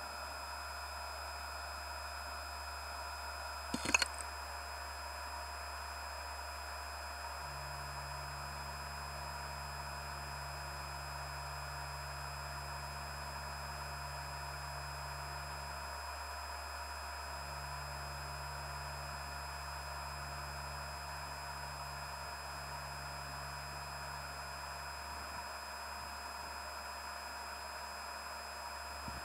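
Hitachi Travelstar HTS424040M9AT00 2.5-inch 4200 rpm IDE laptop hard drive spinning, a steady hum and whine. One sharp click about four seconds in, and a faint low tone that comes and goes through the middle.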